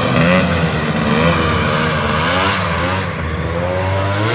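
Snowmobile's Polaris Indy 650 three-cylinder two-stroke engine revving up and down under hard throttle, its pitch rising and falling several times as the sled runs across the yard.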